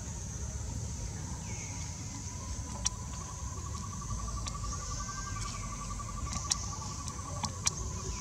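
Steady high-pitched insect chorus over a low rumble. About three seconds in, a fast pulsing trill joins and runs for some four seconds, with a few sharp clicks scattered through.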